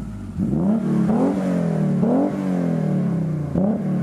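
BMW E24's straight-six engine revved up and let fall back several times, with three longer climbs in pitch and a short sharp blip near the end.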